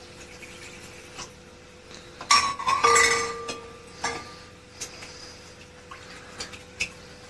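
Glass kitchenware clinking and clattering on a counter: a loud burst of knocks with a brief ringing tone about two to three seconds in, then scattered light taps.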